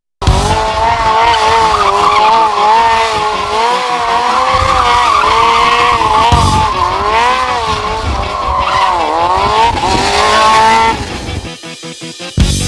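A sport motorcycle's rear tyre squealing as it spins and slides on the asphalt in a stunt, a loud squeal whose pitch wavers up and down and stops about eleven seconds in.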